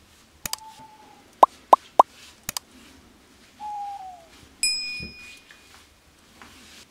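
Sound effects of a pop-up subscribe-button animation: mouse clicks, three quick bright pops, two short falling tones, and a bell-like ding a little past the middle.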